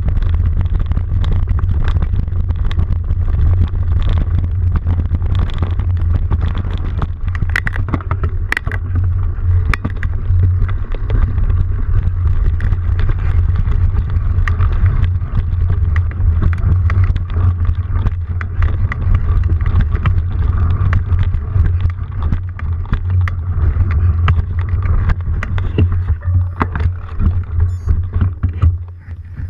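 Riding noise from travelling along a rough grass and dirt trail: a steady, loud low rumble with frequent rattles and knocks from the bumps, easing off briefly near the end.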